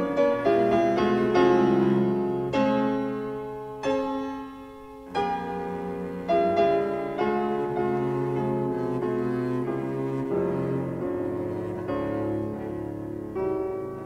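Instrumental background music: piano with bowed strings playing held notes.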